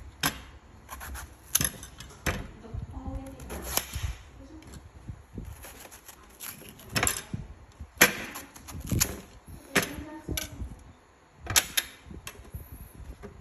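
A series of about a dozen irregular sharp clicks and knocks, the loudest about eight seconds in.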